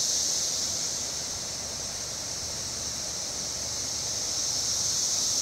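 Steady, high-pitched drone of insects, with a faint low rumble underneath.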